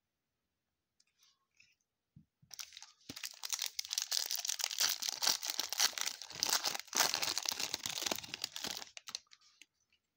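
A trading-card pack wrapper being torn open and crinkled, a dense crackling rustle lasting several seconds, starting a couple of seconds in and stopping shortly before the end.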